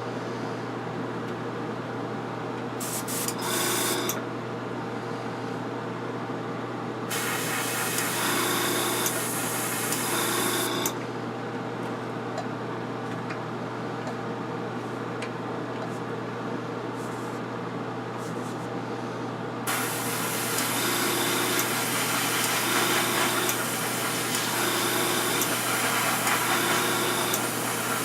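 Paint being sprayed in hissing bursts: a short one about three seconds in, a longer one in the middle, and a steady spray through the last third, over a steady low machine hum.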